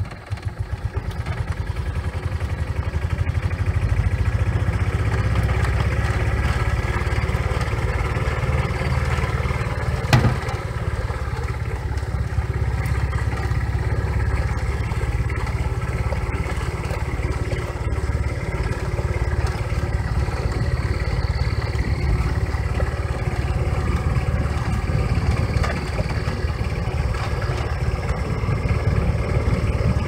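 Engine of a small open farm vehicle running steadily as it drives along a grass track, growing louder over the first few seconds. There is one sharp knock about ten seconds in.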